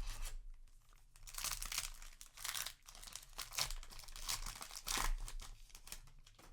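Foil booster-pack wrapper being crinkled and torn open by hand, in a run of rustling, crackling bursts.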